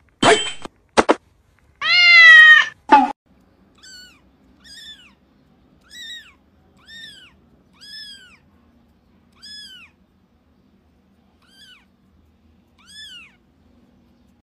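Kittens meowing: a few loud meows in the first three seconds, then a tiny kitten's thin, high-pitched mews, much fainter, about one a second, each rising then falling in pitch.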